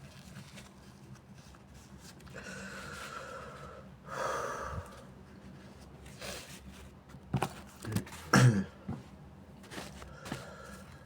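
A person with a congested, sinusitis-sore nose takes gasping breaths in as a sneeze builds. A couple of short catches follow, then one short, loud sneeze about eight and a half seconds in.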